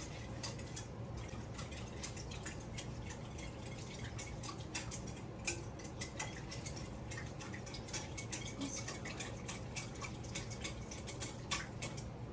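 Scattered light clicks and taps of kitchen utensils and a mixing bowl being handled, over a steady low hum.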